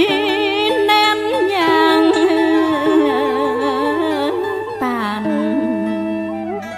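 Music for a Vietnamese ngâm thơ poetry chant: a slow melody of long, wavering held notes that glide between pitches.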